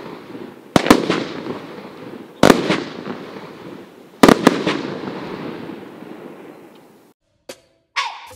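A Dr. Jinx Cruel Cleo 200-gram, 16-shot consumer firework cake firing aerial shots: four sharp reports, the last two close together, each followed by a long fading hiss. The sound cuts off about seven seconds in, and a brief burst of noise comes near the end.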